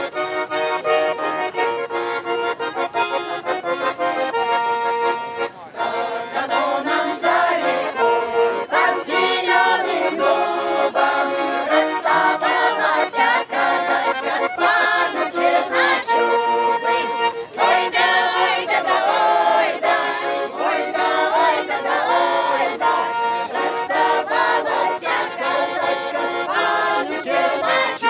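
Button accordion playing a Russian folk tune, with voices singing along.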